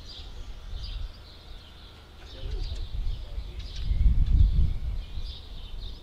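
Birds chirping faintly in the background over a low, uneven rumble that swells to its loudest about four seconds in.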